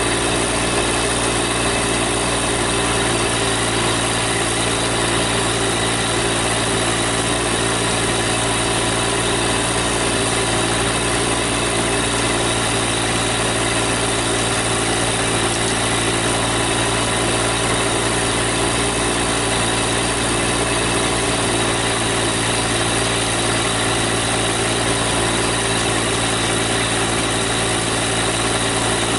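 Compact tractor's engine running steadily at a constant speed, with an even, unchanging hum.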